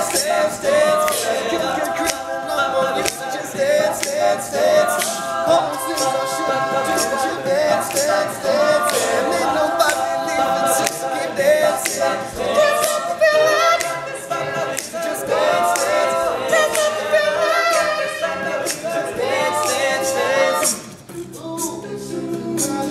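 All-male a cappella group singing wordless close harmonies over a steady beat of vocal percussion. The voices drop away briefly near the end, then come back.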